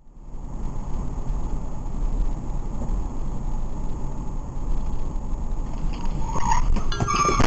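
Steady road and engine rumble of a moving car, heard through a dashcam. Near the end a squeal and a few sharp knocks begin.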